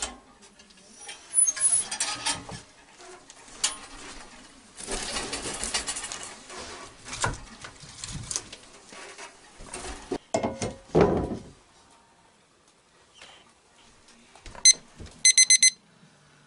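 Firewood being handled and loaded into a small tent wood stove: knocks, scrapes and heavier clunks about ten seconds in. Near the end, a Maverick remote meat-thermometer receiver sounds its alarm, one high beep and then a quick run of beeps, signalling that the beef roast has reached its 150°F target.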